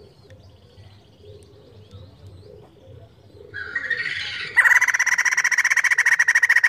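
White-crested laughingthrush calling: faint high twittering at first, then a louder call about three and a half seconds in that breaks into a loud, rapid cackling rattle for the last two seconds.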